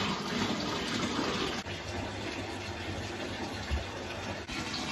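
Water running from a bathtub tap into the tub, a steady rush.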